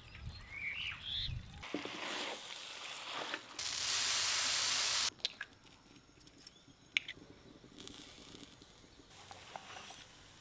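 A run of cooking sounds. First, tap water pours into a bowl of mutton pieces being washed, with a bird chirping at the start. Then comes a loud steady hiss for about a second and a half, followed by quieter crackling and light clicks from a dosa cooking on a cast-iron tawa, with one sharp crack about seven seconds in.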